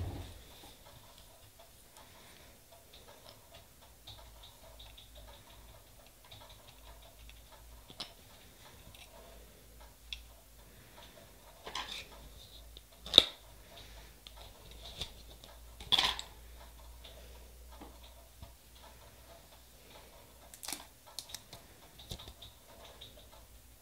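Light, scattered clicks and taps of nail stamping tools and a polish bottle being handled, with two louder taps a little past the middle.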